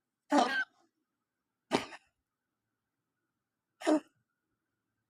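Domestic cat coughing: three short coughs, about two seconds apart.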